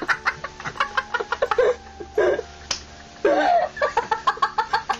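A girl laughing hard in quick, choppy pulses, with a brief break about two seconds in and a couple of longer drawn-out voiced cries after it.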